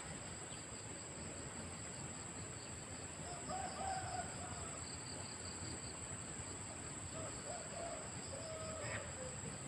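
A rooster crowing twice, about three and a half seconds in and again near the end, the second call falling away at its close. Behind it runs a steady high insect buzz with a faster pulsing chirr.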